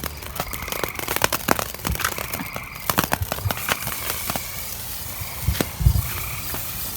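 Handheld firework crackling: rapid, irregular crackles and sharp pops, with one heavier low thump about six seconds in.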